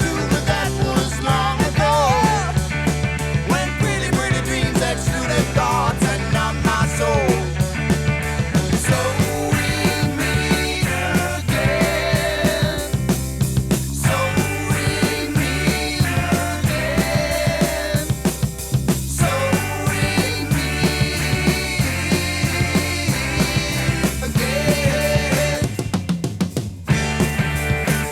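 Instrumental break in a 1972 Danish progressive rock song: drum kit and bass guitar under a lead line that bends and wavers in pitch.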